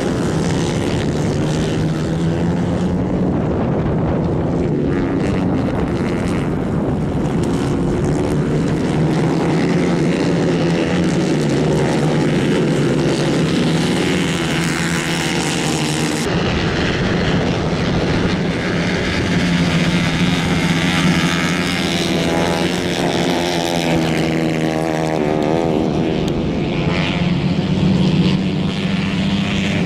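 Two 150 cc Kayak-class racing karts running hard on a dirt track, their engine notes rising and falling as they accelerate and ease off through the corners.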